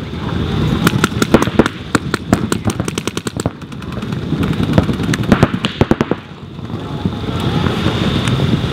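Paintball markers firing in rapid strings of sharp shots, several a second: one long volley about a second in and another shorter burst around five to six seconds in.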